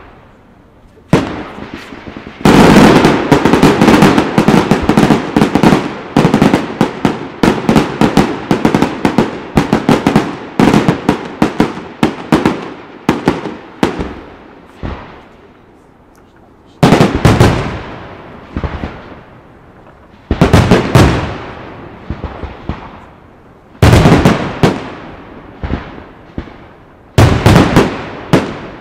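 Aerial firework shells bursting in a display. A dense, fast barrage of bangs runs from about two seconds in to about fourteen seconds. After a short lull come four more salvos of bangs, each dying away.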